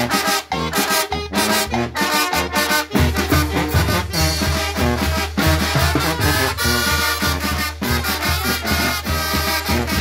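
Live Guerrero-style brass band playing an upbeat tune: trumpets, trombones and saxophones over snare drum, cymbal and a plastic block struck with a drumstick. A stronger pulsing bass line comes in about three seconds in.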